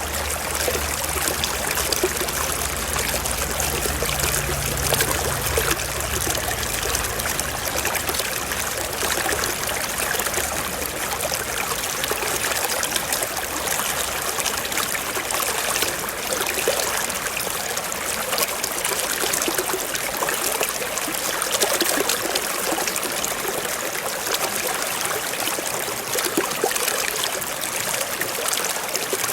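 Small mountain stream flowing and trickling over rocks, a steady splashing rush of water. A faint low rumble under it dies away in the first several seconds.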